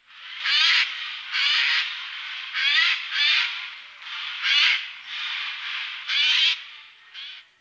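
Eurasian jay giving a series of harsh, rasping screeches, roughly one a second, some louder than others, with a short final one near the end.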